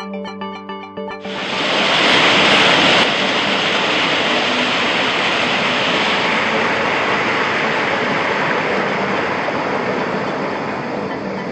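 Water of a small stream rushing, coming in suddenly about a second in as a loud steady hiss that eases slightly later on. Soft background music, with mallet-instrument notes, sits under it.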